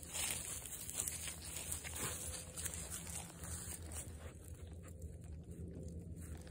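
Soft rustling and light crunching of footsteps and a dog's paws through grass and dry fallen leaves, dying down for a couple of seconds about four seconds in.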